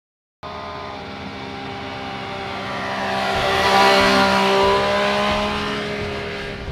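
A motor vehicle engine passing by at speed. It swells to a peak about four seconds in, its pitch dropping slightly as it passes, then fades away.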